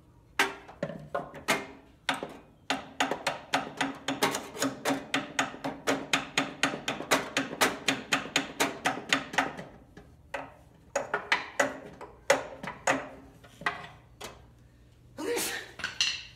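Metal being struck repeatedly, a hammer on the mower's steel: a fast run of blows at about four a second, each with a short metallic ring, then a few slower, scattered strikes.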